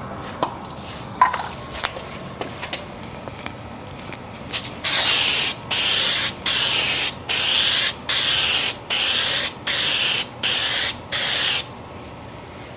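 Aerosol spray can spraying a coat onto a car headlight lens in nine short hissing bursts, each under a second, with brief pauses between them. A few light clicks come before the spraying starts.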